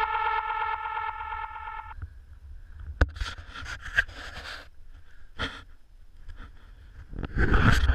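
An electronic dance track fades out over the first two seconds. It gives way to scattered rustles, a sharp click and handling bumps from an action camera being swung about on a pole, with a louder rush of noise near the end.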